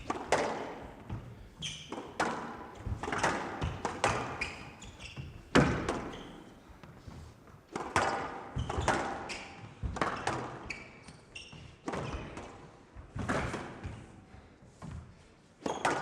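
A squash ball being struck by rackets and hitting the court walls in a fast rally, a sharp echoing hit about every second, with the loudest hit about five and a half seconds in.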